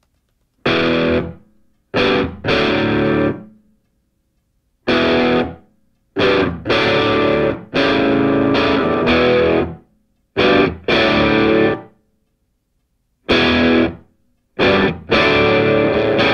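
Background music: distorted electric guitar playing chords in stop-start stabs, each cut off sharply, with silent gaps between them.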